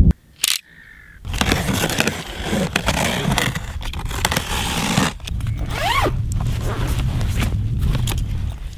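A cardboard carton being cut open with a knife and unpacked: the blade scraping and slicing through packing tape and cardboard, with cardboard rustling and tape tearing. It starts about a second in, with a short squeal near the middle.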